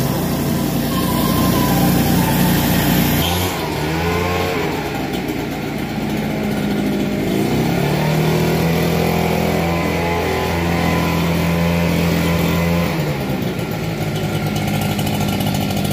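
Engine of a Wright Stander stand-on zero-turn mower running. Its note changes abruptly about three seconds in, then rises in pitch a couple of times as the engine speed changes.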